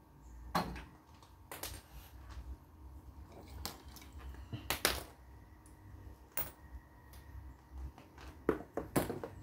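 Scattered clicks and knocks from handling audio cables and an XLR connector around a rack-mount graphic equalizer, a dozen or so sharp taps at uneven intervals.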